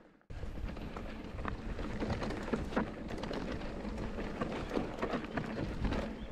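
Mountain bike riding down a dirt trail: tyres rolling and crunching over rough ground, with a dense clatter of small knocks and rattles from the bike. It starts abruptly a moment in.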